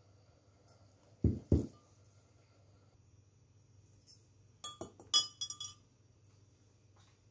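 Two dull knocks a little over a second in. About five seconds in comes a quick run of ringing clinks as a metal mesh infuser ball and its chain are lowered into a glass measuring jug and knock against the glass.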